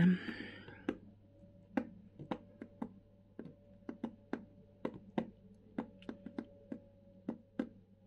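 Sharp, irregular light clicks and taps, about two a second, over a faint steady hum.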